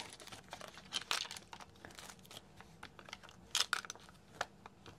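Clear plastic packaging crinkling and crackling in the hands as a small plastic diamond-painting drill tray is put back into it, with the loudest crackles about a second in and again at about three and a half seconds.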